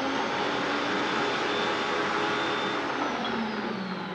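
Bosch Universal stand mixer's motor running at high speed, beating egg yolks as sugar is poured in, with a steady whine; near the end the pitch falls and it gets quieter as the mixer slows.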